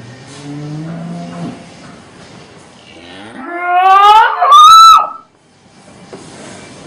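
A cow mooing: a low call rising in pitch about half a second in, then a much louder, higher bawl that climbs steeply in pitch and breaks off abruptly after about a second and a half.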